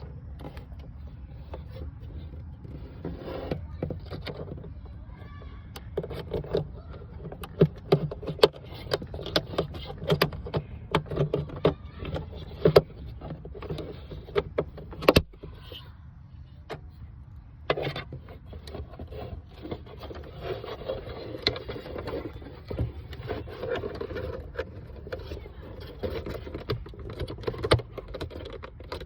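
Plastic dashboard trim being handled and fitted into a car's interior: scattered clicks, knocks and rattles, busiest and loudest in the middle, over a steady low hum.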